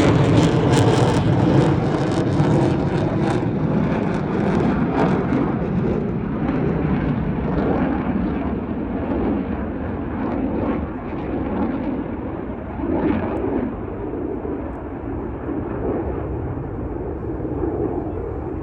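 Blue Angels jet engine noise, crackling at first, then a steady rumble that fades and grows duller as the aircraft flies away.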